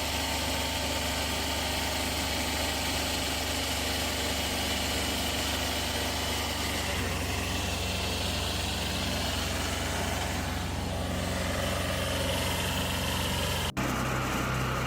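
A heavy machine's engine running steadily, with a brief break near the end.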